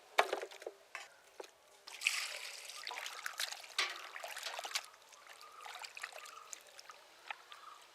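Raw chicken pieces being washed by hand in a basin of water: irregular splashing and sloshing, with a few sharp knocks.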